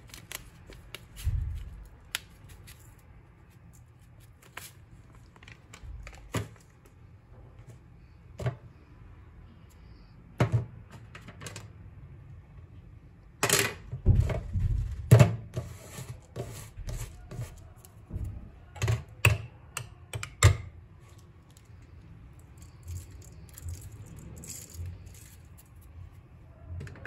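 Scattered clicks and taps as powdered spices are shaken from packets onto raw beef chunks in a stainless-steel colander, with a cluster of louder knocks around the middle.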